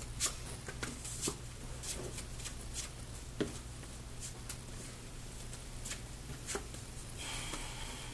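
Trading cards being handled and set down on a table: scattered light clicks and taps, with a brief soft rustle near the end, over a steady low hum.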